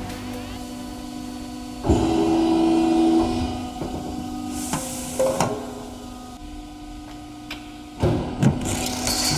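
CNC guillotine shear running, its motor humming steadily, with two loud blade strokes as it cuts aluminium sheet, about two seconds in and again near the end, with clatter in between.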